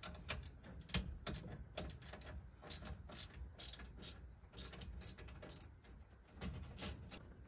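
Ratchet wrench clicking in short irregular runs, with light knocks of tools on metal, as the nuts holding a dashboard are undone.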